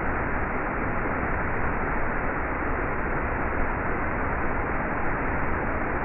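Waterfall cascading over rock ledges into a pool, a steady rushing of water.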